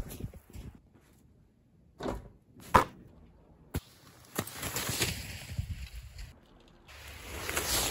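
Snow crunching and scraping: a few sharp crunches, then stretches of rough crunching and brushing. The sound breaks off abruptly into silence a few times.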